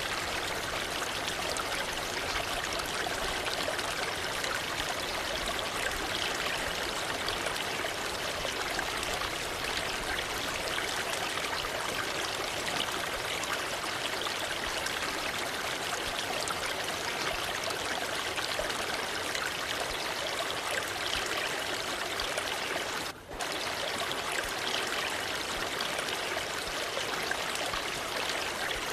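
Waterfall water rushing and splashing in a steady, even hiss, with a momentary dropout about three-quarters of the way through.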